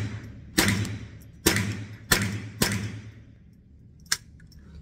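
Remington Nylon 77 semi-automatic .22 LR rifle firing four shots in quick succession, half a second to a second apart, each ringing off in the echo of an indoor range. A faint click follows about four seconds in.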